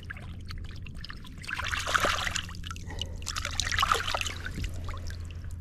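Hands swishing two catfish fillets through shallow lake water to rinse them, splashing and trickling in two bouts, about one and a half seconds in and again around four seconds.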